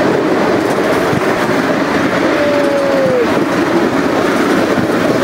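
Miniature railway train running along the track: a steady rumble and rattle of wheels on the rails. About two and a half seconds in there is a brief squeal that falls in pitch.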